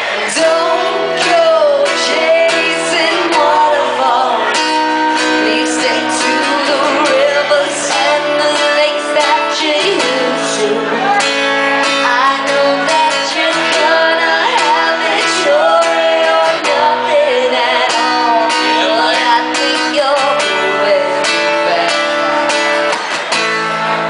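A woman singing a song live over a strummed acoustic guitar, holding long notes with slides in pitch.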